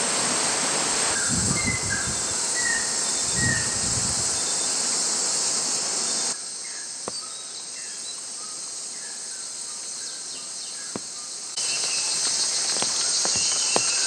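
Rainforest ambience: a steady high-pitched insect drone with short bird chirps over it. It drops quieter about six seconds in and comes back louder shortly before the end. A low rumble runs through the first few seconds.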